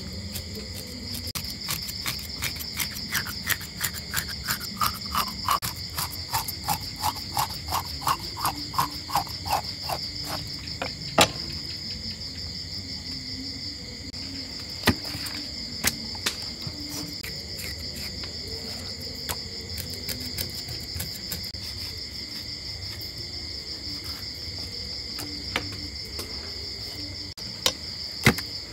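Crickets chirping in a steady high trill throughout, with a cleaver working a fish on a wooden chopping block. For about the first ten seconds it makes a quick run of regular strokes, about four a second. After that come a few scattered single knocks.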